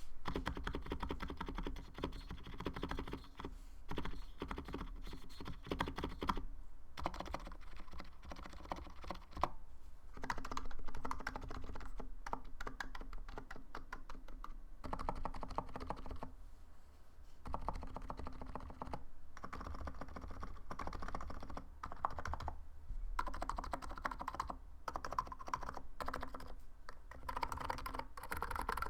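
Typing on a Niz Plum 68 electro-capacitive keyboard: fast runs of keystrokes that stop briefly now and then and start again. The keyboard is stock, with its plate-mounted parts steadied with sticky putty so the space bar does not rattle.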